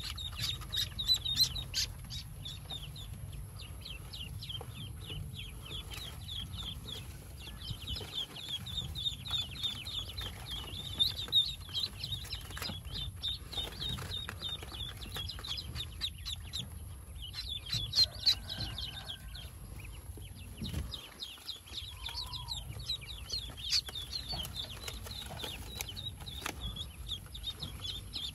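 A crowd of Pekin ducklings peeping without pause, many quick high cheeps overlapping, with a few louder peeps standing out.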